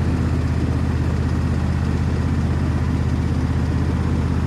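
John Deere S120 lawn tractor's 724 cc V-twin engine running steadily with an even pulse, with the mower deck engaged.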